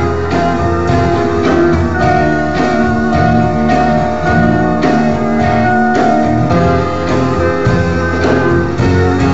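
Instrumental passage of a rock song, with guitar to the fore and no singing.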